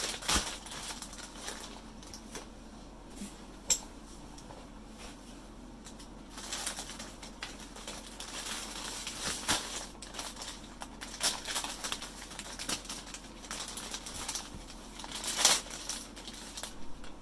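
Intermittent rustling and scuffing of packaging being handled during unboxing, with a sharp click about four seconds in and a louder rustle near the end.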